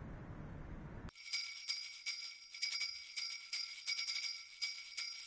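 A low, steady rumble that cuts off about a second in, replaced by jingle bells shaken in a steady rhythm, about three shakes a second, with a bright, high ringing.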